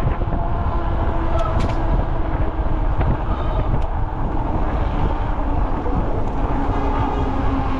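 Steady low rumble of city traffic and wind noise heard while riding, with faint steady whining tones that drop in pitch near the end and a few light clicks.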